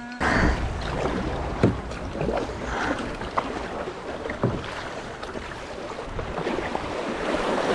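River water splashing and rushing around a kayak, with a few sharp knocks.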